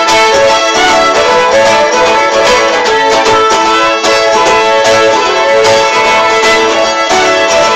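Fiddle music: a folk tune played on fiddle, with the melody running on without a break.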